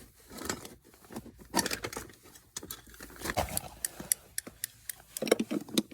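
Irregular small clicks and short scrapes of metal parts being handled as a threaded part is screwed by hand into an outdoor water tap during its repair.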